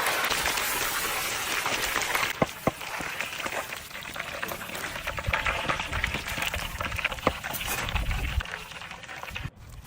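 Fish frying in hot oil: a dense sizzle for the first couple of seconds, then a lighter sizzle with scattered sharp pops and crackles, and a low rumble partway through.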